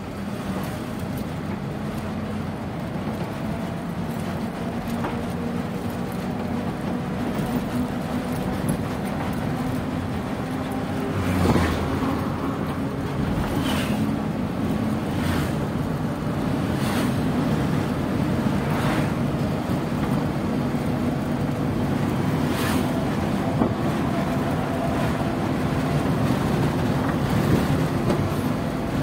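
Steady engine drone and road noise inside the cab of a heavy vehicle driving along a highway. The noise swells briefly about halfway through, followed by a few short sharp knocks or clicks.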